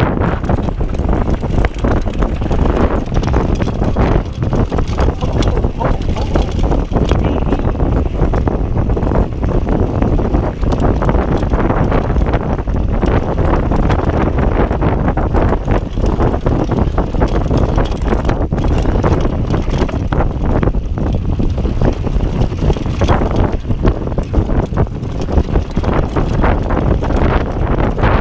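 Heavy wind noise buffeting an action-camera microphone on a mountain bike riding downhill over a rough dirt singletrack, with the tyres rumbling and the bike rattling and knocking over bumps.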